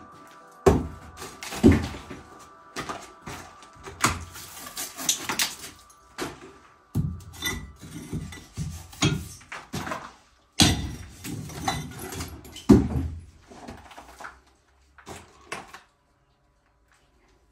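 Lump hammer striking a steel chisel to chip mortar and bricks out of a brick wall, an irregular run of heavy knocks with short pauses between strikes.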